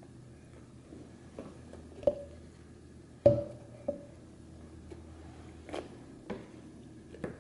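A handful of short knocks and clicks from a plastic tube of effervescent tablets being handled at a wooden table, the loudest a little over three seconds in with a brief ring.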